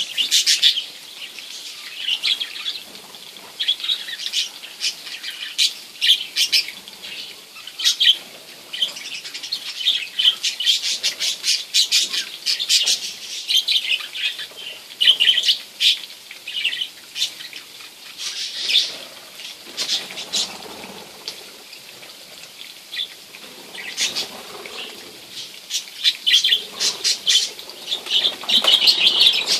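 A small flock of budgerigars chirping and chattering continuously in rapid, high-pitched warbles, with a flutter of wings near the end.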